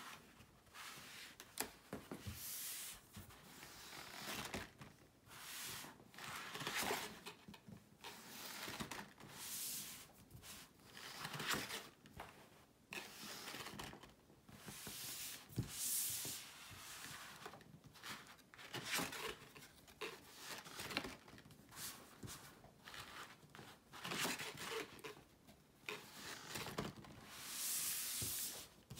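Paper and card rustling and sliding as a pop-up book is opened and its paper pop-up folds and unfolds under a pulled tab, in repeated swishes with small clicks and taps between.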